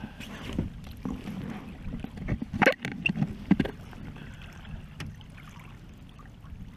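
Water sloshing at the side of a small aluminum boat as a lingcod is held in the water on a fish grip, with a few short, sharp sounds, the loudest about two and a half seconds in.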